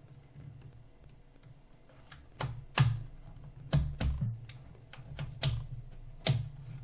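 A run of sharp, irregular plastic clicks and knocks from handling the turntable and its parts, starting about two seconds in, over a steady low hum.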